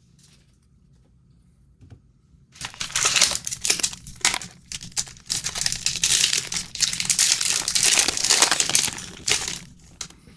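A trading card pack wrapper crinkling and crumpling in the hands for about seven seconds, starting about two and a half seconds in.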